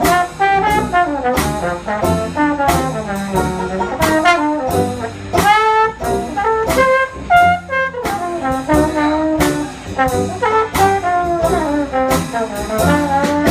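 A live brass band playing jazz, with trombone and trumpet over a steady beat.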